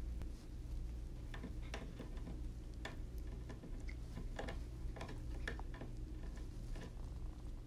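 A cat gnawing on the top rail of a white chair back: irregular small clicks and ticks of its teeth on the hard rail, a few per second.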